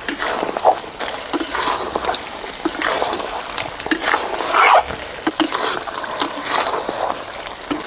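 A metal spatula scrapes and stirs spice-coated chicken pieces around a steel kadhai in quick, irregular strokes, with the masala sizzling as it fries (bhuna) over the fire.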